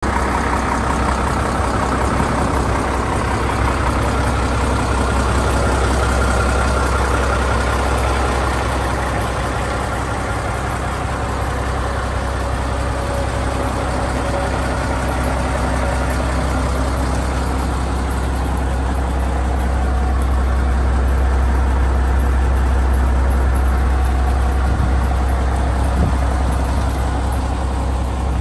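Caterpillar 3306 inline-six diesel of a Peterbilt 357 crane truck idling with a steady low hum.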